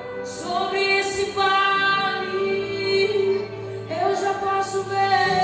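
Worship song with a female voice singing two long held notes over a steady instrumental accompaniment, the first held for about three seconds, the second starting about four seconds in.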